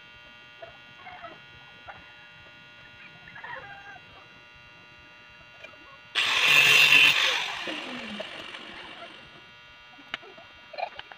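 Handheld angle grinder started about six seconds in, running loudly for a second and a half, then winding down with a falling whine after it is switched off. Chickens cluck faintly before it.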